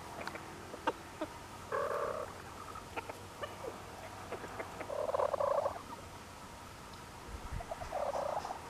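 Silkie chickens giving three soft, low clucking calls, each about half a second long, with light clicks in between.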